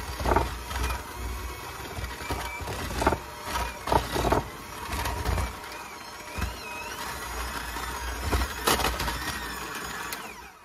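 KitchenAid electric hand mixer running, its beaters churning stiff ginger cookie dough in a glass bowl, with a few sharp knocks of the beaters against the bowl. The motor cuts off abruptly near the end.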